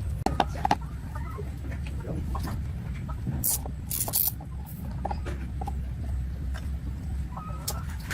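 Scattered small clicks and taps, like tools and metal parts being handled, with two short hisses a little after three and four seconds in, over a steady low hum.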